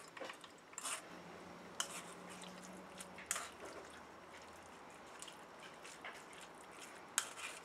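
Faint, wet squishing of a metal spoon pressing blended drumstick pulp through a stainless-steel mesh strainer, with a few sharp clicks of the spoon striking the strainer.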